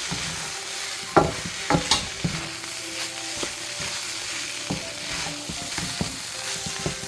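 Fried rice sizzling in a hot pan while it is stirred to mix in sesame oil, with the utensil scraping and knocking against the pan several times.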